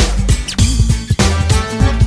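Background music with a steady beat and bass line, in a funk style.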